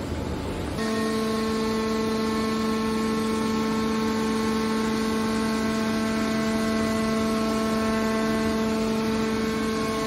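Hydraulic scrap metal baler's power unit running under load with a steady, even-pitched whining hum while its cylinders fold the lid down over the press chamber; the hum starts about a second in, after a short stretch of rumbling noise.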